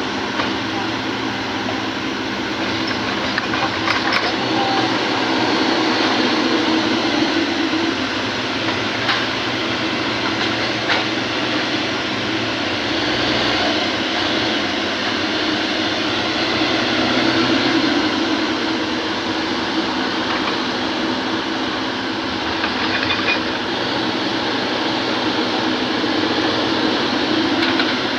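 Kobelco hydraulic excavator working, its diesel engine and hydraulics running steadily, with the drone swelling now and then and a few short knocks.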